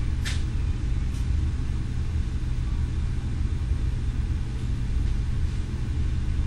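Steady low rumble of the SS Badger carferry's machinery heard inside the passenger lounge while the ship is underway, with two short clicks right at the start.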